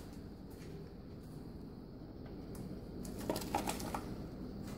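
Boxer dog eating frozen blueberries out of a bowl, faint, with a short cluster of small clicks and crunches about three seconds in.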